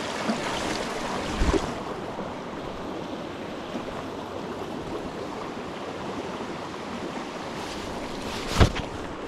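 A small mountain trout stream running over rocks: a steady rush of water. A short thump comes about a second and a half in, and a sharper, louder knock comes near the end.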